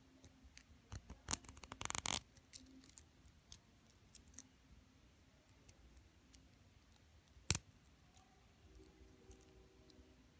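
Fingernails and fingers handling a metal rhinestone hinged bangle bracelet: a quick flurry of small clicks and rattles about two seconds in, scattered light clicks, then one sharp, louder click past the middle as the bangle's clasp snaps open.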